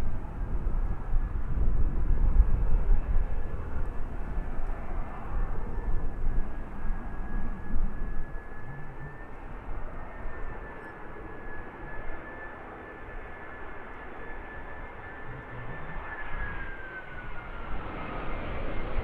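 Jet airliner engines: a steady high whine over a low rumble. The whine falls in pitch near the end.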